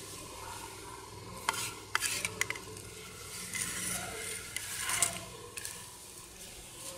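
Handling noise as parts and packaging are moved about: several sharp clicks and knocks, then a stretch of rustling and scraping. The cutter's motor is not running.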